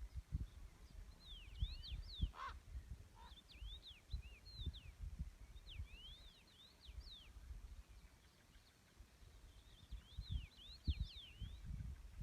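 A songbird singing three short phrases of quick, sweeping whistled notes, with pauses between them, over a low, uneven rumble.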